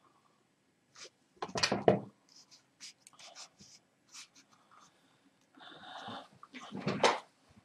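Light clicks and rustling handling noise close to the microphone, from someone busy at a desk, with two louder rustles, one about one and a half seconds in and another around seven seconds.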